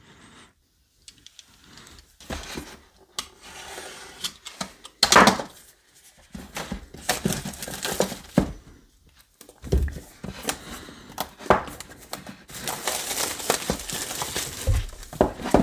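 Cardboard product box being handled and opened: rustling, crinkling and tearing of its packaging with scattered knocks and thumps, and a steadier stretch of crinkling or tearing near the end.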